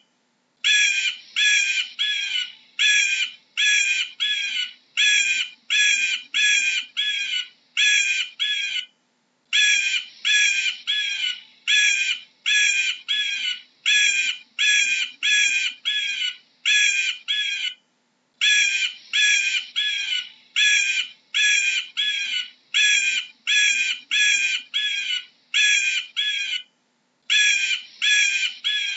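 An eagle calling: short calls repeated about twice a second, in runs broken by brief pauses about 9, 18 and 27 seconds in.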